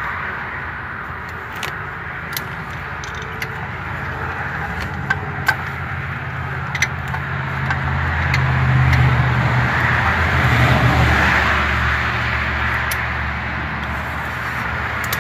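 A motor vehicle's engine running steadily, growing louder about two-thirds of the way through and then easing off, with scattered sharp clicks from a ratchet and hand tools on the suspension bolts.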